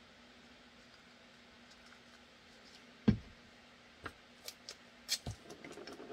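Bench handling sounds: a thump about three seconds in as something is set down on the cutting mat, then a few light clicks and knocks. Near the end comes a quick crackling rattle as blue painter's tape is pulled off its roll.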